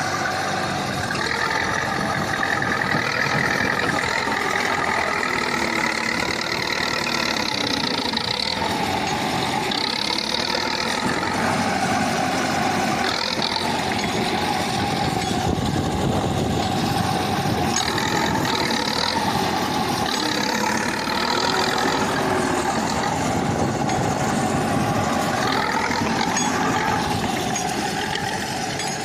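KhTZ T-74 crawler bulldozer's diesel engine running steadily at work, its pitch rising and falling with the load.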